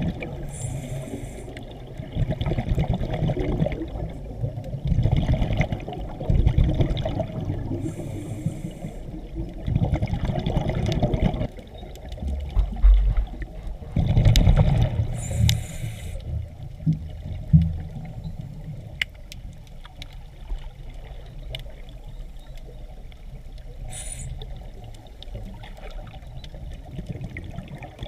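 Scuba diver breathing through a regulator underwater: bursts of exhaled bubbles gurgle every few seconds, with a short hiss on the breaths in. The breathing grows quieter in the second half.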